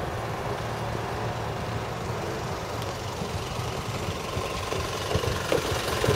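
Class 56 diesel locomotive's Ruston-Paxman sixteen-cylinder engine running with a steady low rumble as the locomotive draws slowly toward the listener. A few short knocks come about five seconds in.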